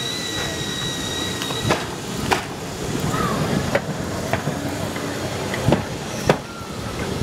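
Southampton tram No. 45 rolling slowly past, its wheels knocking over rail joints in three pairs of clicks. A steady high whine runs for the first couple of seconds, over a murmur of onlookers.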